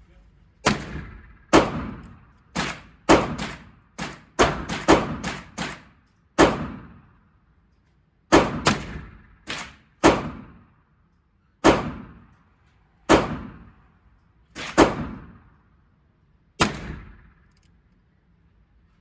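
Live firearm shots at a shooting range, about twenty in all, each sharp crack followed by a short echoing tail. A quick string of shots comes about three to six seconds in, then slower single shots and pairs.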